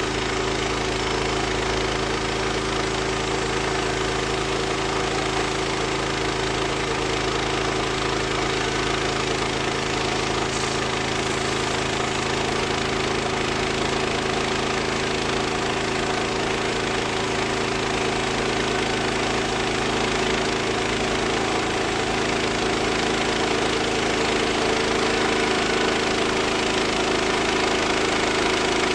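Woodland Mills HM126 portable bandsaw mill running at a steady pitch, its engine driving the band blade through a log as the head is pushed along the cut.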